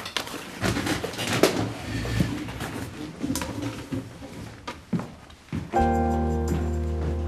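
Rustling and light knocks as books are handled at a wooden table and someone moves about. About six seconds in, a held low chord of background score music comes in with a deep bass note.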